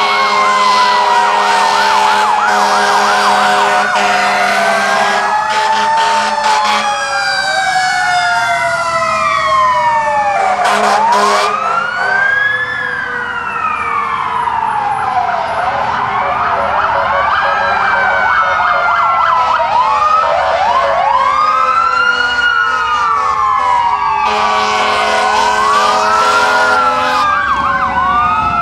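Several fire apparatus sirens wailing at once, their rising and falling pitches overlapping at different rates. Long steady horn blasts sound over them near the start and again near the end.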